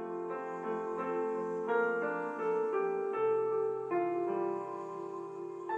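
Background piano music: a melody of single notes, a few each second.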